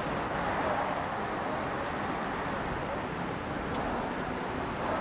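Street noise of passing traffic with indistinct voices.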